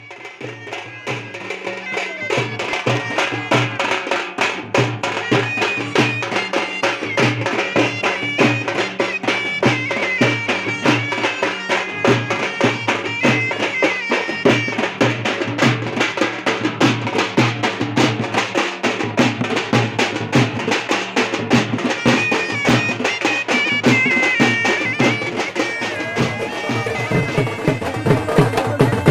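Traditional folk music: a shrill reed pipe plays a stepping melody over a steady held drone, with regular drumming throughout.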